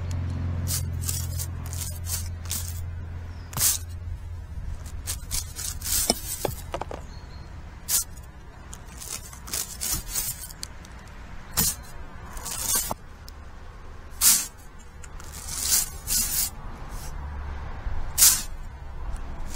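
Stiff plastic-bristle chimney brush being run up and down a sooty brick flue: repeated short, irregularly spaced swishing scrapes as the bristles scour soot from the walls.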